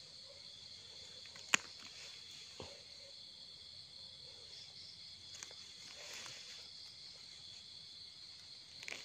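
Steady high-pitched chorus of night insects. A single sharp click about a second and a half in, and faint scrapes and rustles of hands and a knife working the soil, a little louder near the end.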